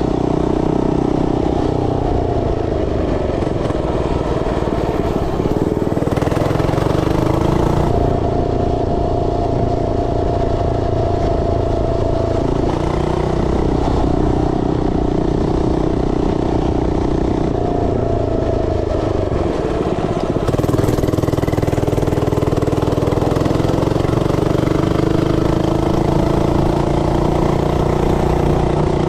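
FRP mini bike's 99cc four-stroke OHV single-cylinder engine running while being ridden. Its pitch rises and falls every few seconds as the throttle is worked.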